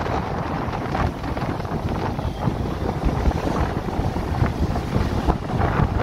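Strong gusty wind buffeting the microphone, over the rumble of heavy storm surf breaking on the shore.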